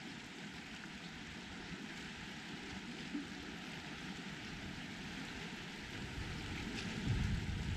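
Wind rushing over the microphone as a steady hiss, with a louder low buffeting rumble about seven seconds in.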